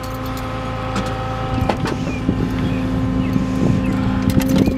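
Engine idling with a steady low hum that grows a little stronger partway through, with scattered light clicks and knocks on top.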